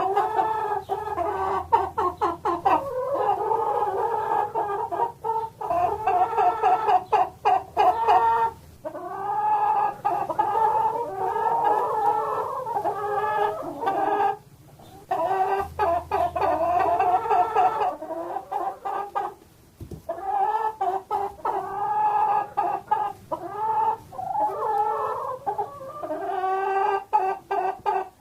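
Chickens clucking, a steady run of short, overlapping calls with two brief pauses about halfway through.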